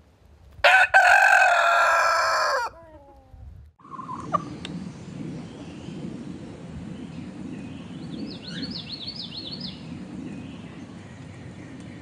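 A rooster crows once, a loud cock-a-doodle-doo lasting about two seconds that starts just under a second in and trails off with a falling tail. After it comes a much quieter steady low background, with a brief high twittering a little past the middle.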